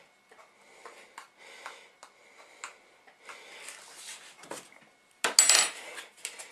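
A metal spoon scraping and tapping inside a foil aluminium container as tomato sauce is spread over pizza dough, then a louder clatter a little after five seconds in as the spoon is put down.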